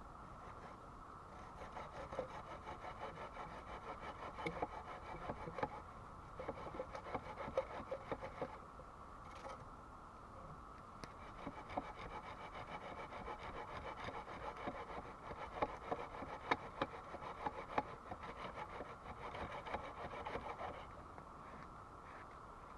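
A hand tool working wood in quick, repeated rubbing strokes, like rasping or sawing. It comes in two long spells with a short pause between them.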